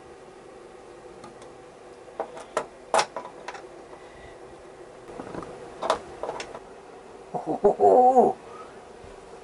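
Sharp metal clicks and taps of a T-handle driver working the small grab-handle bolts on a motorcycle's plastic tail fairing, coming irregularly from about two seconds in. Near the end comes a short wavering voiced sound, about a second long, which is the loudest thing heard.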